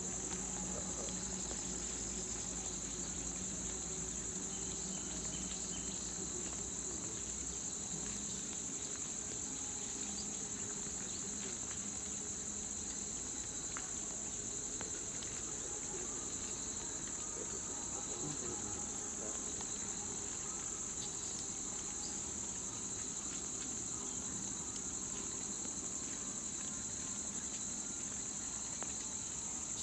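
A steady, high-pitched chorus of insects droning without a break, with a fainter, lower insect tone running alongside.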